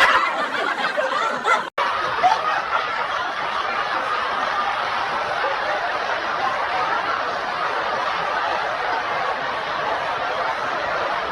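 A group of people laughing and chuckling together in a steady, even wash of laughter, briefly cut off for an instant about two seconds in.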